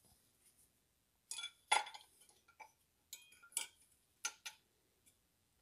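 Short metallic clinks and taps as a camshaft locking tool is handled and set against the exposed camshafts and cylinder head of a BMW N42 engine; about six irregular clinks, the loudest a little under two seconds in.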